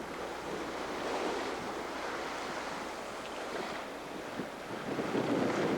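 Wind and breaking sea waves rushing past a sailboat in a strong blow, with wind buffeting the microphone; the rush swells louder about five seconds in.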